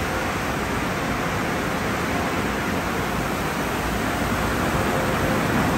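Steady rushing of water spray and spinning soft-cloth brushes in a conveyor car wash tunnel, heard from inside the car, with a faint steady motor hum underneath.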